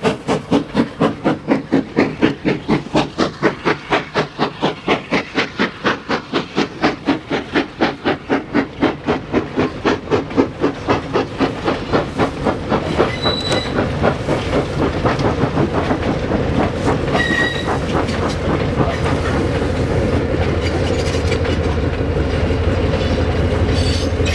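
Vulcan Foundry B2B steam locomotive No. 213 accelerating a mixed train with hard exhaust beats, about two to three a second and quickening, which blend after roughly twelve seconds into the steady rumble and clatter of coaches and goods wagons rolling past. Wheels give a brief squeal twice. A low rumble builds near the end as the trailing Hitachi M5C diesel locomotive comes by.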